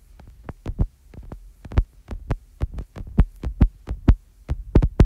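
Stylus tapping and knocking on a tablet while handwriting. Irregular dull taps, several a second.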